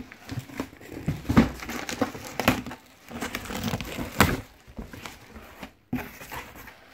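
Cardboard box flaps being pulled open and plastic wrapping crinkling, with a few sharp knocks of cardboard among the rustling.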